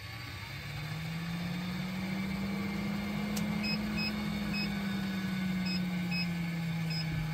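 Fantastic Fan 7350 roof vent fan motor spinning up and running on its newly replaced PCB board. Its hum rises in pitch over the first two seconds, then settles a little lower. Short high beeps sound several times from about four seconds in.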